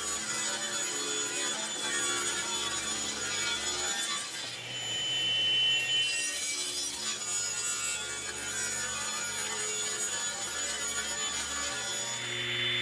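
Powermatic table saw ripping a long wooden board lengthwise over the steady hum of the saw's motor. Partway through, the cut ends and the blade spins free; near the end a new rip cut begins and the sound gets louder.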